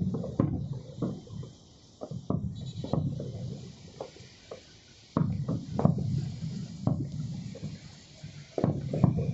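Aerial fireworks shells bursting: sharp bangs and crackles, each followed by a low rumble that dies away over a second or two. Heavy volleys come near the start, about two seconds in, about five seconds in and near the end.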